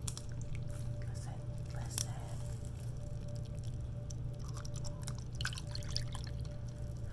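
Faint scattered liquid sounds and small clicks from a drink cup of sweet tea held up to the microphone as mock ASMR, over a steady low electrical hum.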